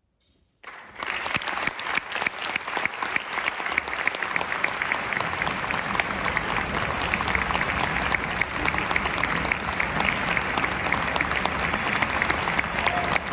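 Concert-hall audience breaking into applause under a second in, then many hands clapping steadily.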